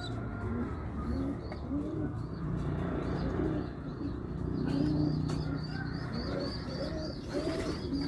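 Domestic pigeons cooing in repeated low, rising-and-falling calls, with a quick run of thin, high cheeps through the second half.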